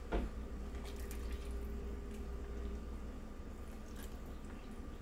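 Water being poured into a baking pan over floured chicken and vegetables, a steady pour with some soft splashing, to make the pan gravy.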